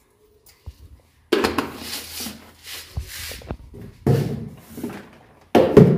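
Items being moved around in a kitchen wall cabinet, with containers and a cabinet door clattering and knocking in three loud bouts, the loudest near the end, while a tea-leaf jar is taken out.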